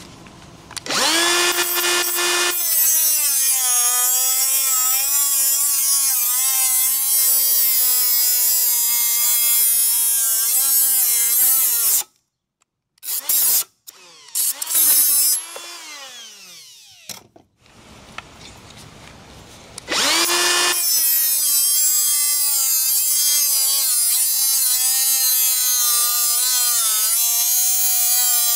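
Makita 18-volt cordless die grinder with a thin 3-inch metal cutting disc cutting through steel chain links: a loud high whine whose pitch dips and wavers as the disc bites into the steel. It stops about 12 seconds in, winds down with a falling whine a few seconds later, and starts cutting again about 20 seconds in.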